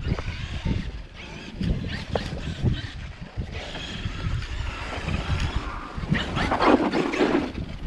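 Wind buffeting the microphone over the whir of a Traxxas X-Maxx 8S, a brushless electric RC monster truck, driving through snow, with a louder surge of noise about six to seven seconds in.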